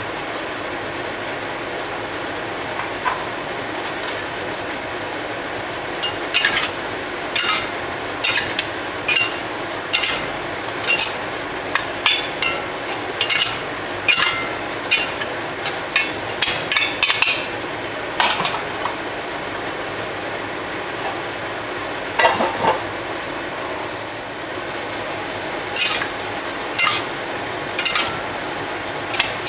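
A metal utensil repeatedly knocking and scraping against a pan while stir-frying, about one or two clanks a second with pauses, over a steady rushing hiss.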